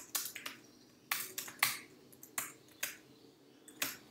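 Keystrokes on a computer keyboard as code is typed: about nine separate, irregularly spaced key clicks.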